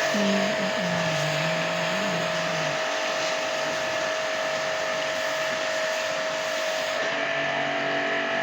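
Electric jet pump (pressure washer) running steadily, a constant motor whine over the hiss of the water spray, used for washing out a window air conditioner. Its pitch steps up slightly near the end.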